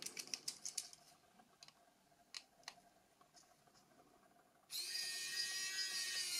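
A few small plastic clicks, then about three-quarters of the way in a Xiaomi electric precision screwdriver's motor starts and runs with a steady whine at an even speed. It is set to its second torque level, which runs at the same speed as the first with more force.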